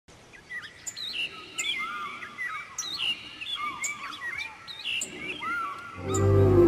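Birds chirping, a run of short whistled calls that glide up and down in pitch. Music comes in near the end.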